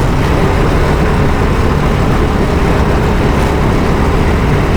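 Go-kart engine running at a steady speed, under a dense rushing noise.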